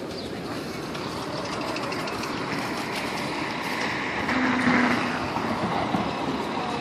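A firehouse's overhead bay door rolling up with a continuous mechanical rumble that grows louder as it opens. A brief steady tone sounds about four and a half seconds in, at the loudest moment.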